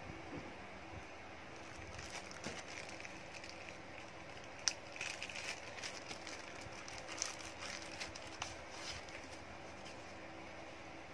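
Plastic wrapping crinkling and paper rustling as a wrapped booklet is handled, in scattered small crackles with one sharper click about halfway through, over a faint steady hum.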